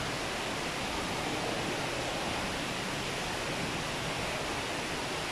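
Steady rushing noise, even and unchanging, spread from low to high pitches, like running water or moving air.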